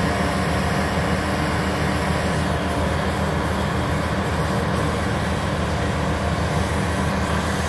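LeeBoy 8500C asphalt paver and the dump truck backed up to its hopper, their diesel engines running steadily: a continuous low mechanical drone that stays at an even level throughout.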